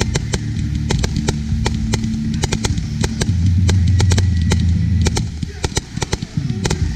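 Multi-shot consumer fireworks cake firing: a rapid, continuous string of shots and crackling bursts, several a second.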